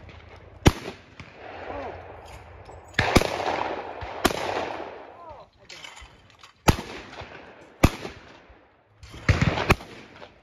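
Shotgun shots: several sharp reports a few seconds apart, then a quick cluster of reports near the end. Voices talk faintly in between.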